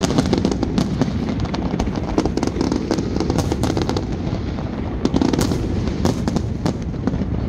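Fireworks display: a rapid, irregular run of sharp bangs and crackles over a continuous low rumble of shell bursts.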